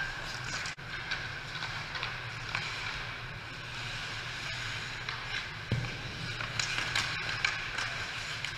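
Ice hockey play: skate blades scraping and carving on the ice and sharp clacks of sticks and puck, over a steady low hum of the rink.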